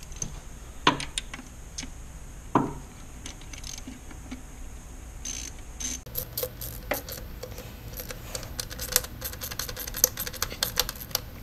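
A couple of knocks of a tool against engine parts, then from about six seconds in a socket ratchet clicking rapidly as a screw is run in under the hood.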